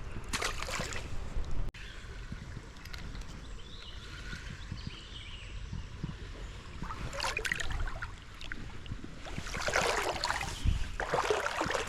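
Creek water running steadily, with louder bursts of splashing a few times, about seven seconds in and again near the end, as from wading through the current.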